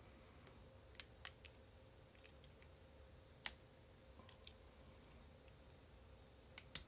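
Faint, irregular clicks of lock picks working the slider core of an On Guard bicycle U-lock, with a sharper click near the end.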